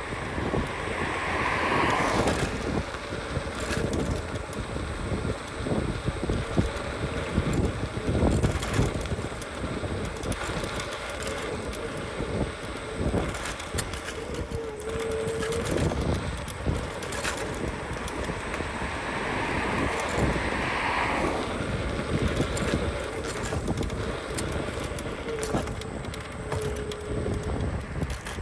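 Scooter riding along, with wind buffeting the microphone and rattling and knocking over the road surface. Two brief squeaks, about halfway through and near the end.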